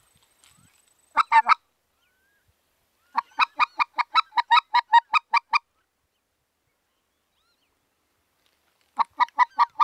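Mouth-blown goose call sounding rapid runs of goose honks, about five a second: a brief cluster, then a run of about a dozen, and another run starting near the end. It is the call a hunter uses to turn geese back after they have been shot at.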